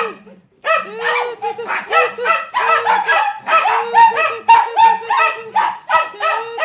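Dachshunds barking angrily at a vacuum cleaner: a rapid, unbroken run of sharp barks, about three a second, with one short gap just after the start.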